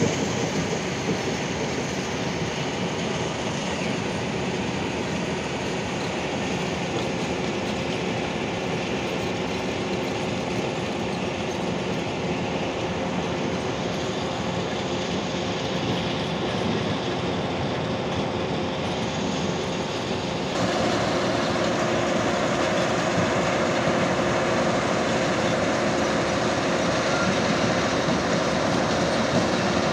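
Hitachi Zaxis 210F hydraulic excavator running steadily, a continuous engine and machine rumble with a faint steady hum in it. About two-thirds of the way through the sound shifts and becomes slightly louder.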